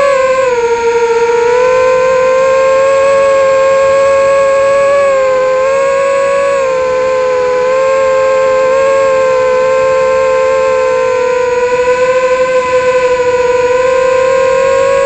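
FPV quadcopter (iFlight Nazgul) motors and propellers whining at a steady high pitch, wavering slightly up and down as the throttle changes.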